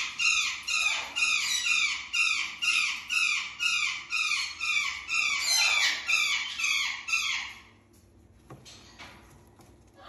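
Parrot in a nest box giving a fast, even series of harsh calls, about three a second, that stops abruptly about seven and a half seconds in.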